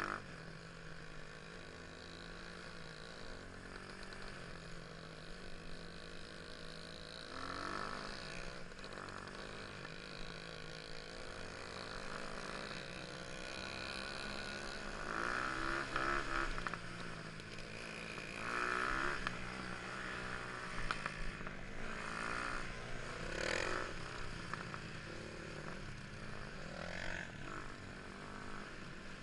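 Motorcycle engines running and revving, the pitch rising and falling, with louder bursts of acceleration past the middle.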